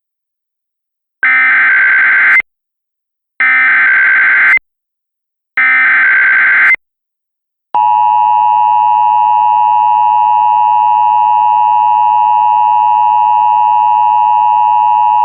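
Emergency Alert System warning tones: three short bursts of the SAME digital header chirp, each about a second long, followed by the long, steady, loud EAS attention tone that begins about eight seconds in.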